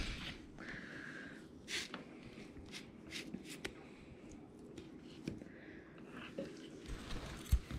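Metal fork scraping and tapping on a paper plate as it cuts into and lifts a cooked trout fillet, a series of scattered small clicks and scratches, with a soft thump near the end.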